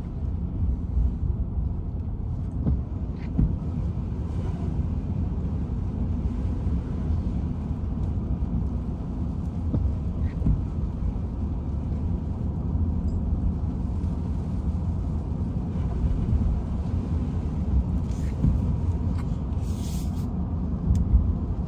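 Steady low road rumble heard inside the cabin of an electric F-150 Lightning pickup driving on wet pavement: tyre and road noise with no engine sound.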